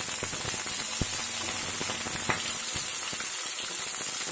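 Chopped onions, green chillies and tempering spices sizzling in hot oil in a pan, a steady hiss, with two sharp clicks about a second and about two seconds in.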